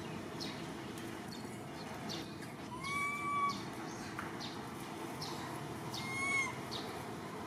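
Infant long-tailed macaque crying: two high, arched, pitched calls about half a second each, roughly three and six seconds in. These are an orphaned baby's sobbing calls for its caretaker.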